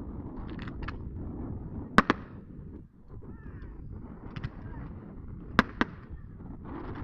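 Fireworks bursting during a display: two loud, sharp bangs in quick succession about two seconds in, and another pair later, with fainter pops and crackles between them.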